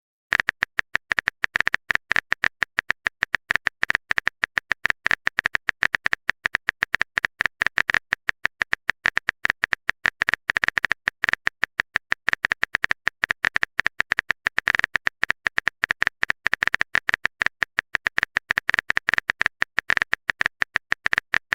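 Rapid typing clicks from a sound effect, several a second, each with the same bright tick, as text is typed out letter by letter.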